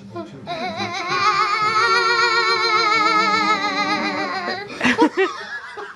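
Baby holding one long, high silly vocal sound that wavers up and down several times a second like a warble, then a few short squeals near the end.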